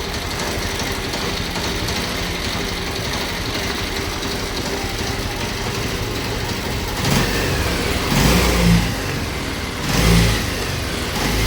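Bajaj Pulsar 150 single-cylinder engine running steadily at idle, then blipped up in revs several times in the second half. It runs noisily and vibrates heavily, which the mechanic puts down to a fault in the scissor gear.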